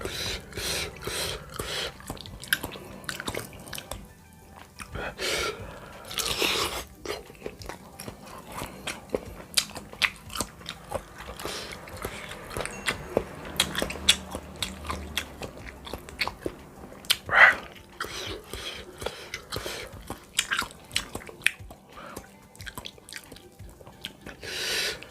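Close-mic eating sounds of bakso meatball soup: wet chewing and biting with many small mouth clicks, and a few louder bursts, about six seconds in, near seventeen seconds, and at the end.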